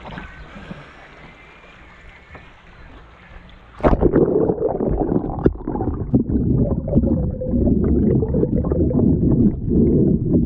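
Faint water and hull noise alongside a kayak, then about four seconds in the camera goes underwater. The sound turns into a loud, muffled rumble of water against the camera housing, with constant crackling clicks.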